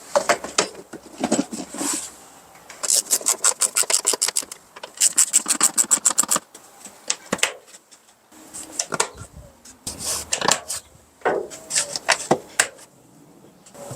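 A ratchet wrench clicking in two fast, even runs, about eight clicks a second, as fasteners are driven back in on the air cleaner housing. Scattered clicks and knocks come between the runs.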